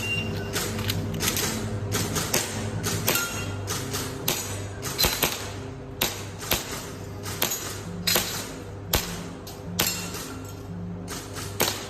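Background music with a steady low beat, over a long run of sharp cracks from an airsoft pistol being fired through a shooting stage, often in quick pairs.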